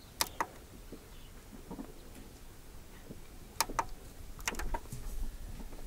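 A few faint clicks, in three quick pairs, from an LG CD boombox being handled as its volume is turned up. No music or other sound comes from its speakers.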